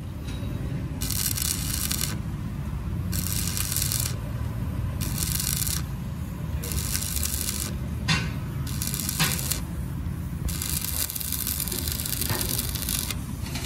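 Repeated scraping strokes on metal, about one every two seconds, the last one drawn out longer, over a steady low hum; two sharp clicks in the middle.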